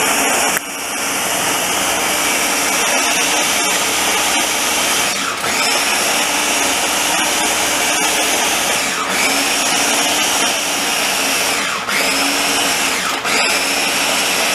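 Electric mini food chopper's motor whirring as it blends a meatloaf mix with croutons, held on in long pulses with brief breaks about five times, each restart spinning up with a rising whine. The mix is done when the crunch of the croutons stops.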